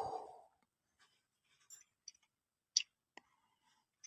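The tail of a loud noisy rumble dies away in the first half second, then near silence broken by four or five faint, sharp clicks at uneven intervals.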